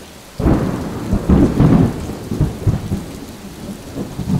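A thunderclap breaking suddenly about half a second in, then rolling rumble that swells again after a second and slowly dies away.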